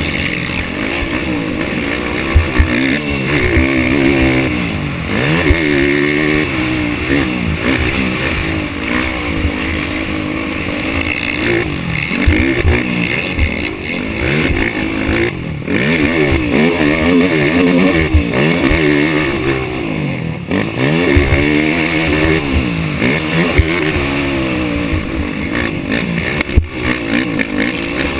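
Race ATV engine revving hard and changing pitch over and over through a practice lap, climbing and dropping every second or two with throttle and gear changes, with frequent short low thumps.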